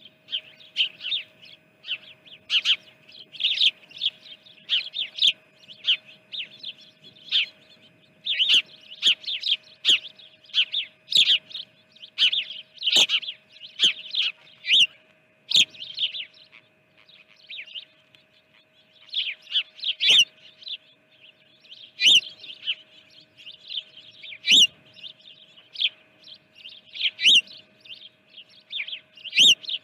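Small songbirds chirping in quick, short, sharp notes, coming in busy clusters with brief lulls, over a faint steady hum.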